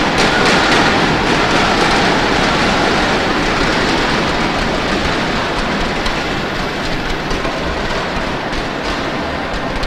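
Arena crowd noise: a dense, steady din of many spectators cheering, clapping and banging inflatable thundersticks, easing slightly toward the end.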